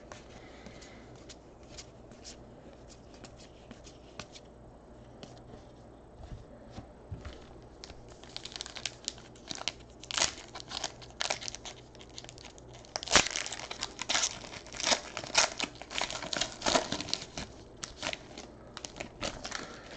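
Foil wrapper of a 2018 Panini Contenders Draft card pack being torn open and crinkled by hand. It starts about halfway in, after a quiet stretch with a few soft ticks, and goes on in quick crackly rustles.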